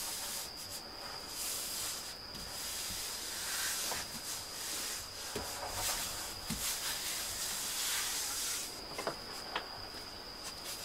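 Hands rubbing and smoothing a vinyl wall sticker onto wallpaper, peeling its backing paper: a rustling, hissy swish that comes and goes in strokes, with a few small clicks.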